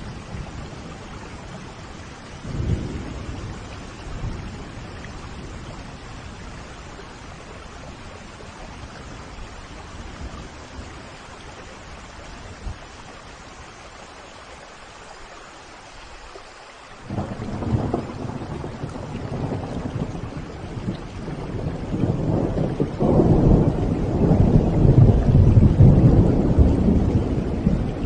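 Steady rain with thunder: a short rumble a couple of seconds in, then a long rumble that starts suddenly about two-thirds of the way through and grows louder, loudest near the end.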